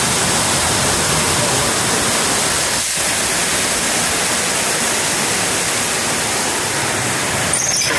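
Loud, steady rush of a waterfall inside a cave, with a brief dip about three seconds in.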